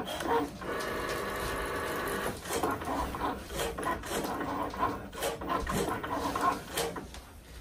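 Cricut Maker cutting machine running a cut of small circles, its carriage and roller motors whirring. A steady motor whine starts about half a second in and lasts nearly two seconds, then gives way to short stop-start whirs and ticks as the blade carriage changes direction.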